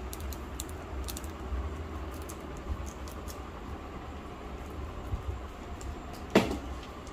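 Light clicks and handling noises of small scissors snipping and craft materials being moved on a table, with one louder knock about six seconds in, over a low steady hum.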